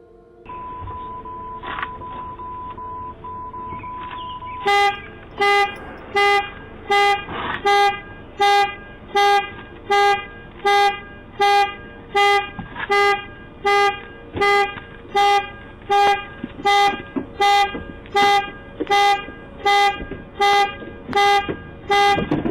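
Car security alarm set off by a break-in, picked up by a doorbell camera: the car horn honks in a steady rhythm of about one and a half honks a second, starting about five seconds in. Before the honking, a steady high tone sounds.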